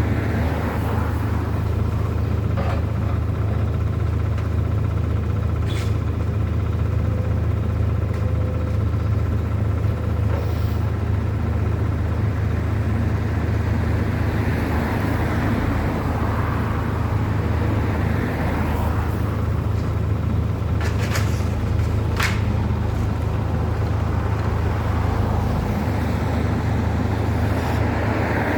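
Engines running with a steady low rumble, with a few sharp clicks or knocks, one about six seconds in and two close together near twenty-one and twenty-two seconds.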